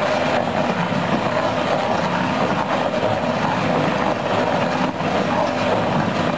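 Tractor engine running steadily under load, driving a PTO-powered stump grinder whose vertical cutter is grinding a tree stump into wood chips.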